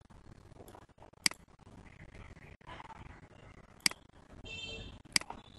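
Three sharp computer-mouse clicks, spaced a second or more apart, over faint room noise.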